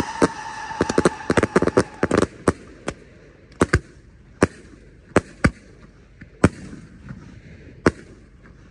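Multi-shot consumer firework cake firing: a rapid string of sharp bangs for about the first two seconds, then single shell bursts every second or so, thinning out toward the end.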